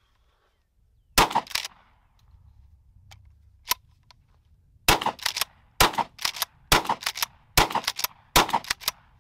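Rock Island All Gen 12-gauge pump-action shotgun fired six times: one shot, a pause, then five shots in quick succession a little under a second apart. Each shot is followed by the clack of the pump being racked fast to chamber the next shell.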